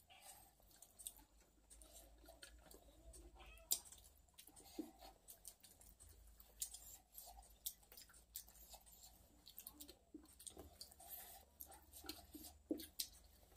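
Fingers mixing rice on a stainless steel plate, with soft clicks and scrapes and one sharper clink about four seconds in, along with quiet chewing. A few faint meow-like calls come in between.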